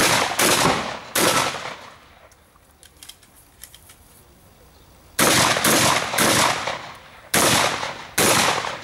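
A long gun firing in quick succession: two shots, a gap of about four seconds, then five more shots at a bit under a second apart, each ringing out briefly.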